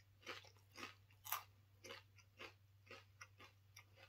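A person chewing a mouthful of Doritos tortilla chips: short crunches about twice a second, the loudest about a second in, growing fainter near the end.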